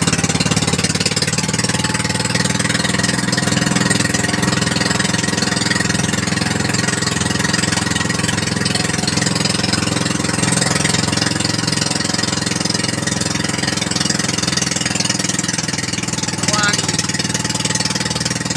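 A bangka outrigger boat's engine running steadily while under way, a constant low drone, with a hiss of wind and water over it.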